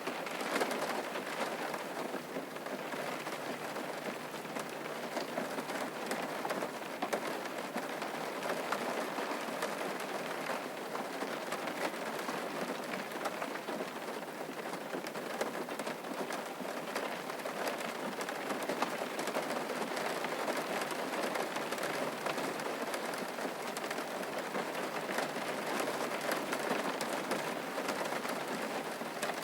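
Steady rain falling, an even hiss of many drops with fine pattering of individual drops.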